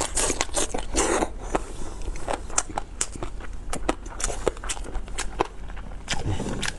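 Close-miked eating: a person chewing meat with wet lip smacks and sticky mouth clicks, several a second at an uneven pace.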